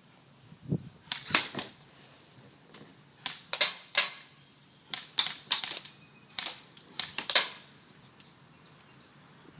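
Airsoft guns firing single shots: about fifteen sharp snaps in uneven clusters of two or three, with a dull thump just before the first.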